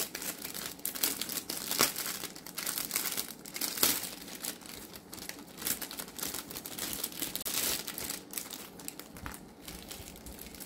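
Clear plastic packaging crinkling and rustling as it is handled, in a string of irregular crackles, a little louder about 2 and 4 seconds in.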